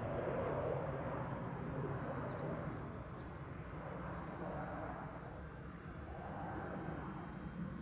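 Boeing 737 jet engines at takeoff thrust on the takeoff roll, heard from a distance as a steady broad rumble that slowly fades.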